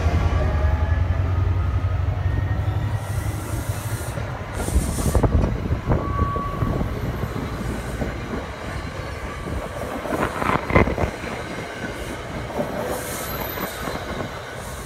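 NJ Transit Comet passenger coaches passing close at speed, pulled by a PL42AC diesel-electric locomotive. The locomotive's low drone fades over the first few seconds. Rumbling wheels give clicks and knocks over the rail joints, with a brief wheel squeal about six seconds in and another cluster of knocks about ten seconds in.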